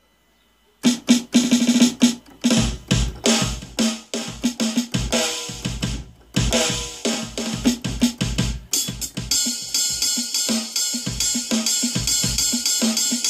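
Sampled acoustic drum kit (Addictive Drums 2 samples in a Korg Pa2x keyboard's drum kit) played from the keyboard keys: separate kick, snare and tom hits in fills, starting after about a second of silence. From about nine seconds in it settles into a steadier beat under a continuous high wash.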